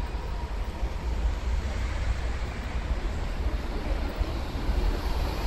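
Steady low rumble of city street traffic with a bus going by close by.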